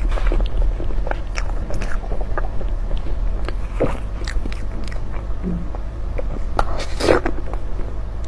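Close-up chewing and biting sounds of someone eating a soft layered butterfly pea flower mille crepe cake: wet clicks and smacks scattered throughout, with a louder burst about seven seconds in, over a steady low hum.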